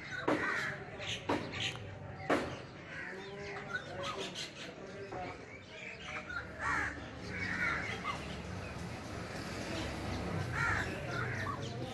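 Rufous treepie calling: a run of short, repeated notes, with a few sharp clicking notes in the first couple of seconds, over a low steady hum.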